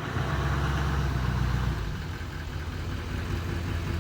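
A steady motor running with a hiss over it, a little louder for the first couple of seconds.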